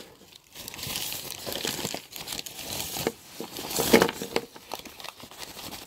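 Crumpled brown paper crinkling and rustling as it is handled and rummaged through, in irregular scratchy bursts, loudest about four seconds in.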